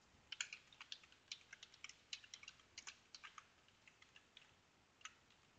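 Computer keyboard being typed on: a quick, irregular run of keystrokes for about four seconds, then a pause and one last key near the end, faint.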